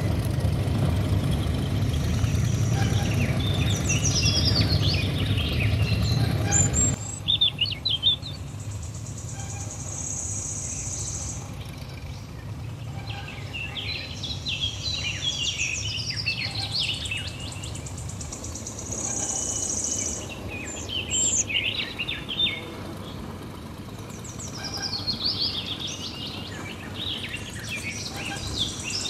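Birds chirping and calling outdoors in repeated flurries of short high notes. A low steady rumble underneath stops suddenly about seven seconds in.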